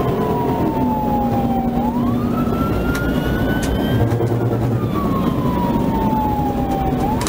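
Police siren wailing, its pitch sliding slowly down, sweeping back up and falling again in a cycle of about five seconds. Beneath it runs the steady engine and road noise of the patrol car driving at speed.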